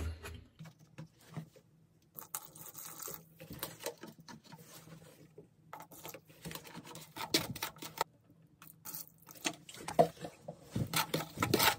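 A hand trowel scrapes and stirs thinset mortar in a plastic bucket while an acrylic fortifier-and-water mix is worked in. The scrapes and knocks are irregular and get busier and louder in the last few seconds.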